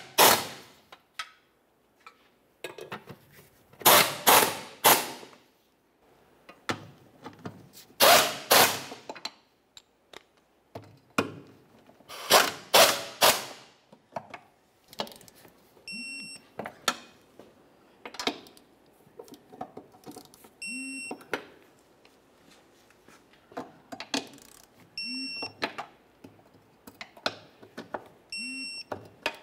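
A hand ratchet clicks in short bursts of three or four strokes as the crossmember bolts are run down. From about halfway, a digital torque wrench gives four short beeps, each with a light knock, as each mounting bolt reaches its 21 Nm setting.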